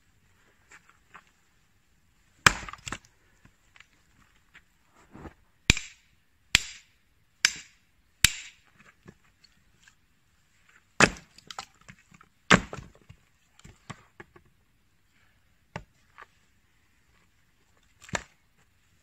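An axe chopping firewood on a chopping block: about ten sharp blows into the wood at uneven intervals, with smaller knocks between them.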